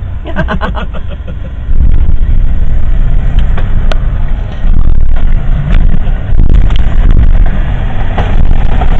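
Bulldozer's diesel engine running loud and heavy while working snow, getting louder about two seconds in.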